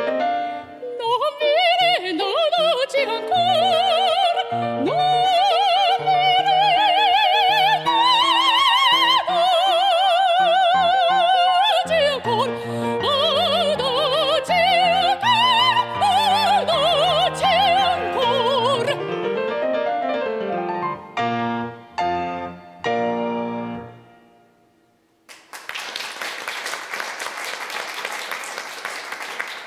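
Soprano singing with wide vibrato, accompanied by grand piano. The voice stops about two-thirds of the way through, the piano closes with a few final chords, and after a brief pause applause begins.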